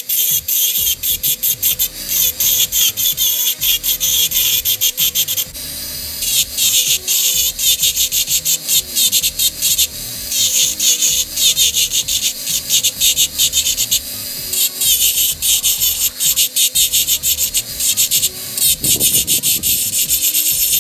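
Electric rotary tool with a small ball burr grinding dimples into a brass razor handle: a steady motor whine with a rapid, high-pitched rasping chatter each time the bit touches the metal. The rasping breaks off for a moment three times while the motor keeps running.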